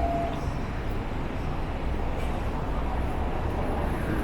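Strong wind buffeting the microphone: a steady, uneven low rumble over outdoor street noise.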